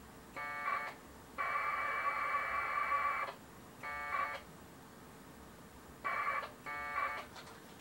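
AX.25 packet radio data bursts from a ham radio: two-tone modem warbling in bursts of different lengths, one long burst of about two seconds among several short ones, with hiss in the gaps.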